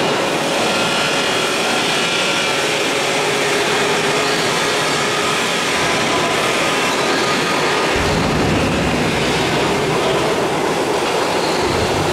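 Overhead crane running as it carries a steel truck-scale deck, a loud, steady clatter and hum with faint high whining tones. A deeper rumble joins about eight seconds in.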